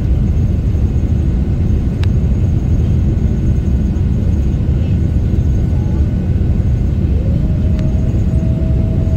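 Steady low roar of a jet airliner's engines and rushing air, heard inside the passenger cabin during the climb after takeoff. A faint hum slides up and holds near the end.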